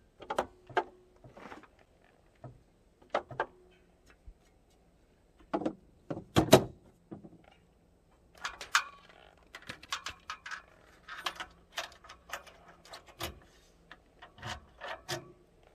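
Hand work on an Onan MicroLite 2800 generator's air filter housing and compartment: a scattered series of plastic clicks, snaps and knocks as the filter cover and retainer clip are pressed into place and the louvered access door is handled shut. The loudest knock comes about six and a half seconds in.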